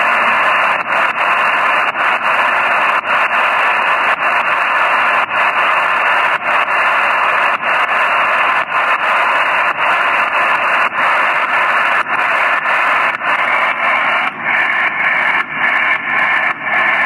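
HF shortwave receiver tuned to 8122 kHz with no one transmitting: a steady hiss of static and band noise with frequent brief dips. Faint traces of a weak signal show through near the end.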